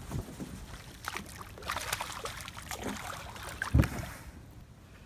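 A hooked fish splashing at the water's surface as it is reeled in and lifted out, with a dull thump nearly four seconds in.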